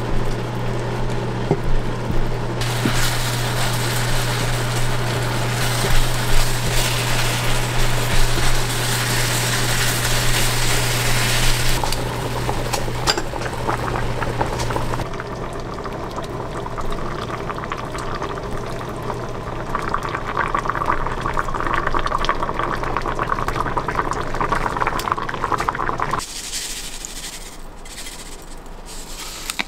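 Thick soy-based braising sauce bubbling and sizzling hard in a pan of chicken drumettes as it reduces to a glaze, with a steady low hum under it for the first half.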